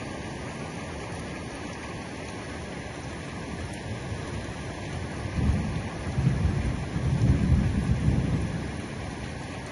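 Heavy rain falling steadily, with a low roll of thunder that swells about five seconds in and fades away over the next few seconds.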